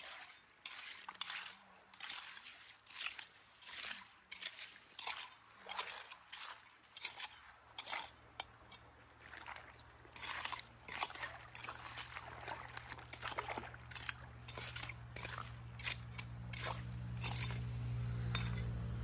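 Hands sloshing and scooping through shallow stream water and wet gravel in repeated strokes, about one or two a second, with an occasional clink of stones. In the second half, low steady background music fades in under it.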